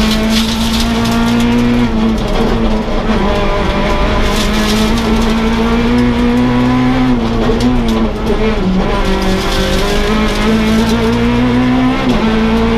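Peugeot 208 R2 rally car's naturally aspirated 1.6-litre four-cylinder engine, heard from inside the stripped cabin, running hard at high revs. The engine note climbs and then drops sharply a few times as the driver lifts and changes down through the gears.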